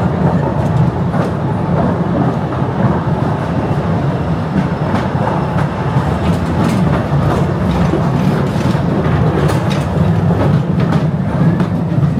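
Cave tourist train running, with a steady low rumble from the carriages and wheels clicking over rail joints. The clicks come more often from about halfway through.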